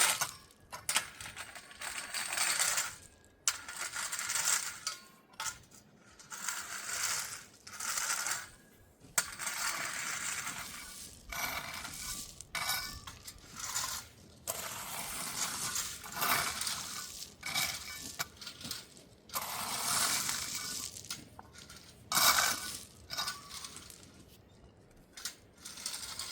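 Gravel being shovelled and spread by hand: repeated scrapes and small stones clattering, in irregular strokes about a second long.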